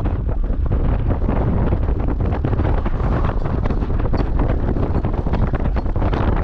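Loud, steady wind buffeting the microphone over a low rumble, as from riding on a moving vehicle.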